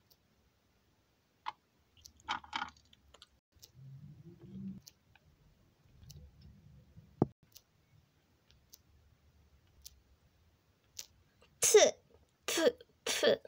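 Plastic toy dollhouse pieces and a doll being handled: scattered light clicks and a few soft rubbing sounds, then three loud knocks close together near the end.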